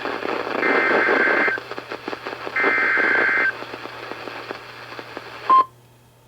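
NOAA Weather Radio SAME alert header: two bursts of warbling two-tone digital data about a second long, a second apart, over radio static. At about five and a half seconds a short loud beep near 1 kHz sounds and the static cuts off.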